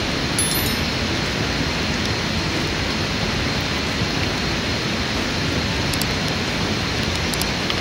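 Steady, even rushing hiss that never breaks, with a faint thin high tone running through it.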